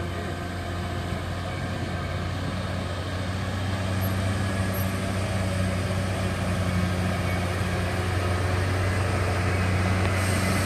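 Mercedes-Benz coach's diesel engine running under load as the bus pulls past toward the listener: a steady low drone that grows gradually louder.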